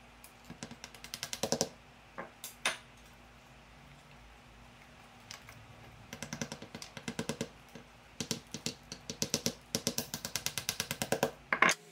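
Small ball-peen hammer tapping notched wooden lattice strips down into each other at a cross joint: quick runs of light, sharp taps, several a second, with a pause of a few seconds in the middle.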